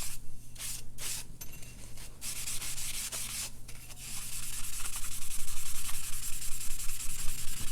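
Scrubbing sponge rubbed back and forth on a ceramic sharpening stone with Barkeeper's Friend cleanser and a little water, scouring off the metal loading: a fast, gritty rubbing that gets louder about halfway through.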